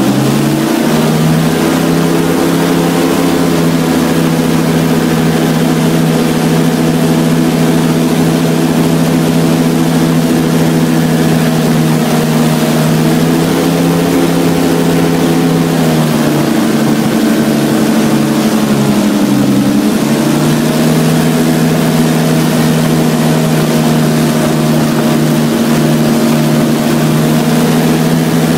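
Airboat engine and propeller running under way. The pitch rises about a second in as the throttle opens, eases off twice in the middle, then picks up again.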